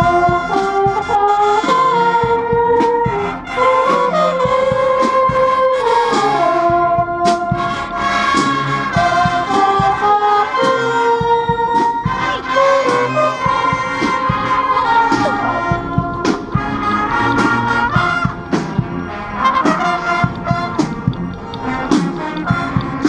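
Marching band playing: a brass melody of trumpets and trombones over drum hits, loud and continuous.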